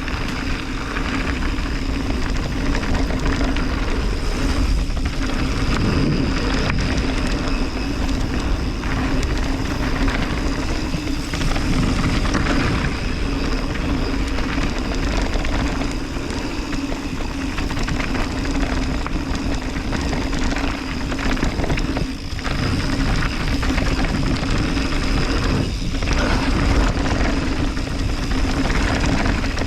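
Mountain bike rolling down a dirt downhill trail: wind rushing over the camera microphone with the rumble and rattle of tyres and bike over the ground, and a steady hum underneath.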